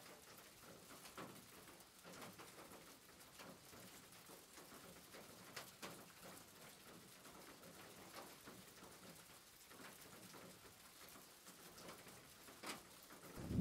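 Near silence, with faint scattered light ticks and scrapes from a wooden spoon stirring sliced red chillies in oil in a pot.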